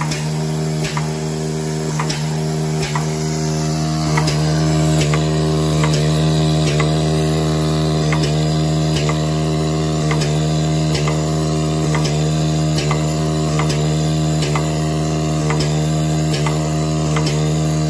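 Urbinati volumetric seeding line with its pot conveyor running: a steady motor hum with sharp mechanical clicks about twice a second.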